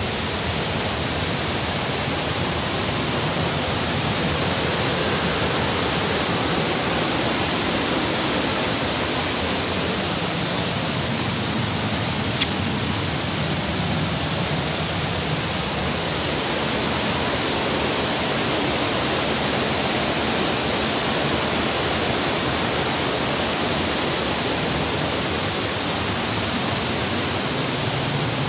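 Steady rushing of water from a stream running among boulders, a constant even hiss.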